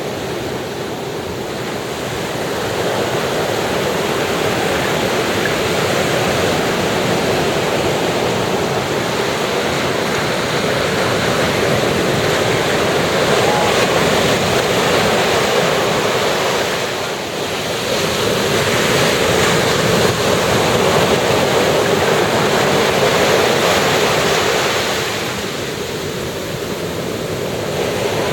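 Ocean surf washing onto a beach: a continuous rushing that swells and eases with the waves. It briefly softens about two-thirds of the way through, and again near the end.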